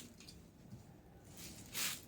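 Packaging being handled, with a short rustle near the end.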